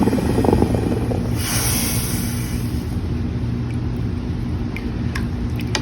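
Hot steel quenched in a blacksmith's slack tub of water: choppy bubbling in the first second, then a brief hiss about a second and a half in. A steady low rumble runs underneath.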